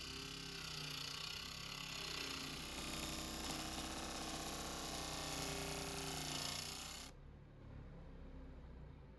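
Wood lathe running, a steady motor hum with a hiss over it. About seven seconds in the hiss cuts off suddenly and the sound turns quieter.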